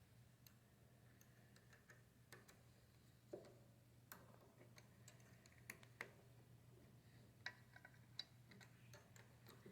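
Near silence with faint, irregular small clicks and ticks, a dozen or so, from a cutting tool being reset and tightened in a mini metal lathe's tool holder, over a low steady hum.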